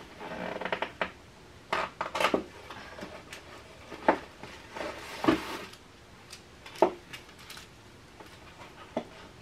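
Packaging being handled: a cardboard sleeve and a plastic-wrapped beeswax food wrap rustle, with about half a dozen sharp crackles and taps spread through.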